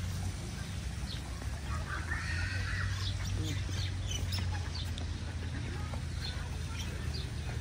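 Scattered short bird calls and clucks, likely from the ducks and other fowl around the pond, over a steady low hum.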